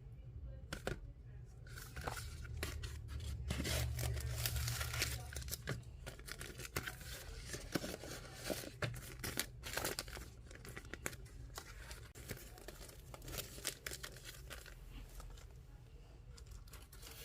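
Plastic packaging being torn open and crinkled by hand, a dense run of irregular crackles and sharp clicks.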